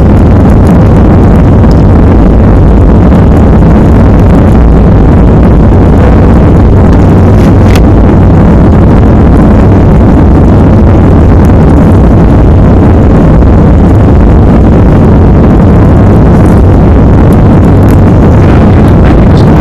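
Jet airliner's engines and airflow heard from inside the passenger cabin during the climb just after takeoff: a loud, steady, deep-pitched noise with no breaks.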